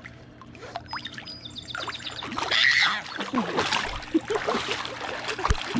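Pool water splashing as a baby slaps the surface with his hands, heaviest about two to three seconds in.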